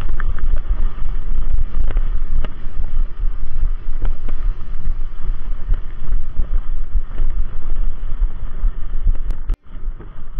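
Wind buffeting the microphone as a deep, steady rumble, with scattered small clicks and knocks from the mountain bike's ride. The sound breaks off abruptly for an instant near the end.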